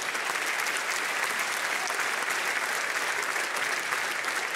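Theatre audience applauding, a steady patter of many hands clapping.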